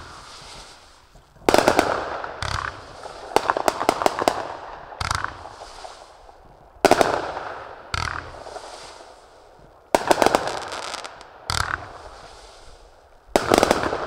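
Skysong 'Rampage' 25-shot 500-gram fireworks cake firing its shots one after another, a sharp bang about every one to two seconds, each followed by a fading hiss, with a stretch of rapid crackling about four seconds in.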